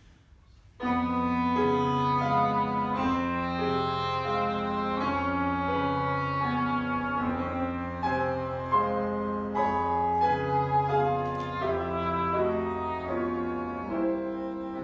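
Live classical music: piano with a melody instrument playing held notes, starting suddenly about a second in after a hush.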